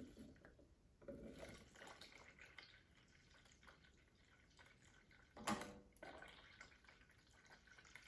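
Faint trickle of water running from a gravity water filter's spigot into a plastic blender jar, with one short knock about five and a half seconds in.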